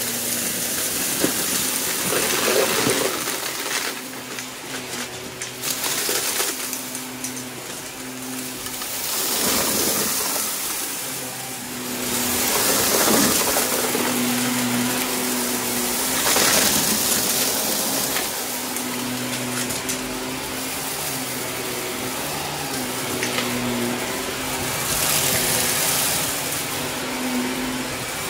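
Shark upright vacuum cleaner running on carpet with a steady motor hum, its suction noise swelling every few seconds, while small hard bits of plastic debris clatter up through the nozzle.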